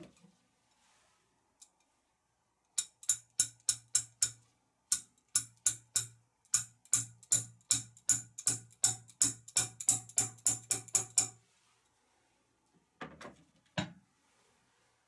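Fast series of sharp metallic taps from a hand tool working a wall anchor in a screw hole, about three strikes a second in runs with short breaks. Near the end, two duller knocks.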